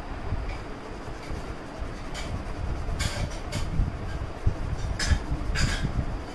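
A colored pencil scratching across paper in short shading strokes, heard as several brief scratchy rasps from about two seconds in, over a steady low rumble.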